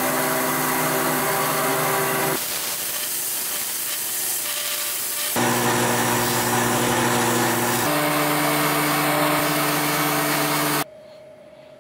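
Polishing motor running steadily while a brass bolt and nut are held against its spinning wheels: a steady hum under a loud hiss of abrasion. The hum's pitch shifts a few times between takes, and the sound stops abruptly about a second before the end.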